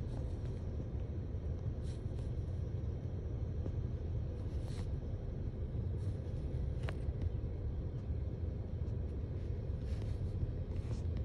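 Steady low rumble inside a car, with a few faint clicks scattered through it.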